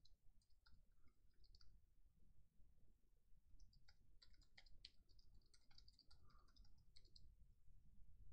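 Faint computer keyboard typing: a short run of keystroke clicks, a pause, then a longer run of keystrokes.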